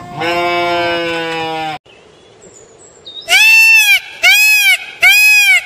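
An animal's drawn-out call for almost two seconds, then after a short lull three short calls in quick succession, each rising and falling in pitch.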